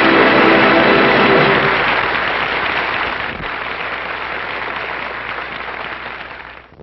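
Loud rushing noise that slowly fades away over several seconds, with a held music chord sounding beneath it for the first two seconds.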